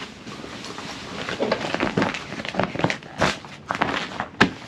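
Canvas tent fabric and nylon straps being handled and adjusted: irregular rustling and scraping with scattered clicks, and one sharp click near the end.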